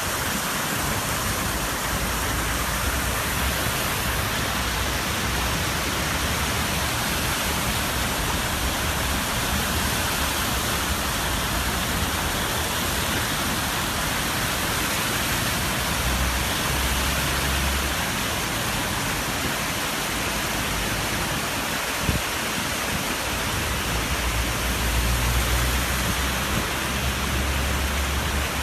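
Heavy rain falling steadily, a dense even hiss, with low rumbles about halfway through and again near the end.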